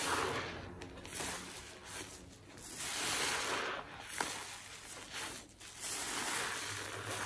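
A soapy sponge squeezed and kneaded by gloved hands in a tub of thick suds: about five wet squelching, crackling swells of foam and water, with a short sharp click about four seconds in.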